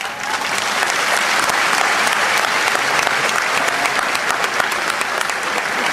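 Audience applauding, quickly building up in the first second and then holding steady.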